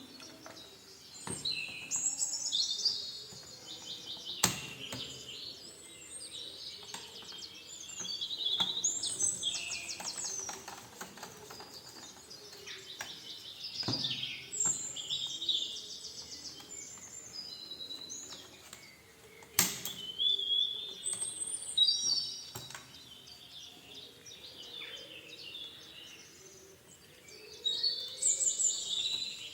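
Small birds chirping and trilling in repeated short phrases, with a few sharp clicks in between.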